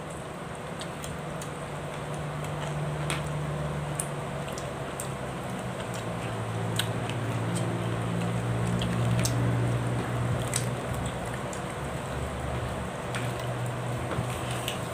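Close-up sounds of someone eating with their fingers: chewing and wet mouth noises with scattered sharp ticks, over a low steady hum.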